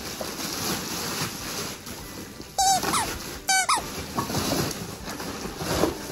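A dog's squeaky toy being chewed, giving two short, sharp squeaks about a second apart, over steady rustling of wrapping paper being cleared up.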